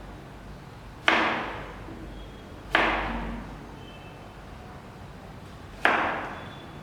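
Three sharp impacts, spaced unevenly about one and a half to three seconds apart, each ringing out and fading over about a second.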